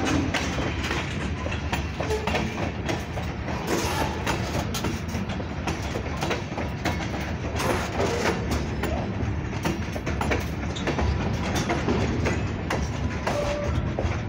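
Freight train cars rolling past: covered hoppers and boxcars, their steel wheels clacking over rail joints with a steady rumble and frequent short knocks.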